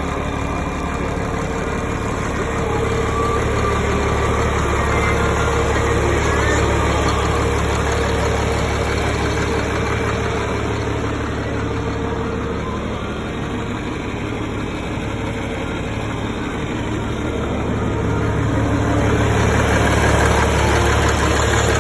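1991 John Deere 4455 tractor's 466 cubic-inch inline-six diesel running steadily at idle, a constant low drone that grows a little louder near the end.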